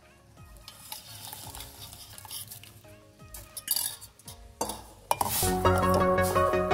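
Tea pouring through a steel mesh strainer into milk in a steel pot, then a steel ladle stirring and clinking against the pot. Background music comes in loudly about five seconds in and is the loudest sound.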